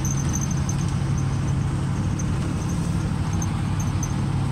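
GMC 370 V8 engine of a 1958 Chevrolet 3600 truck running at a steady cruise, heard from inside the cab as a constant low drone with road noise, and faint irregular high-pitched ticks.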